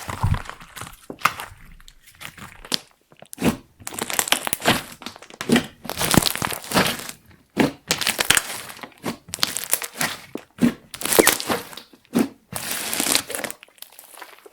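Hands kneading and stretching clear slime mixed with makeup and glitter: sticky squishing in irregular bursts, with many sharp clicks.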